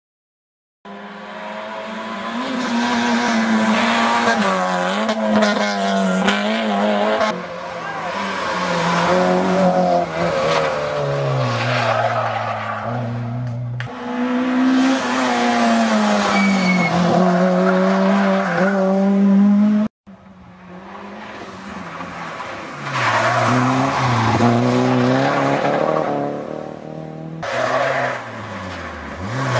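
Rally car engines driven hard on a tarmac stage, revving up and dropping back again and again through gear changes. The sound comes as several separate passes, with abrupt breaks between them.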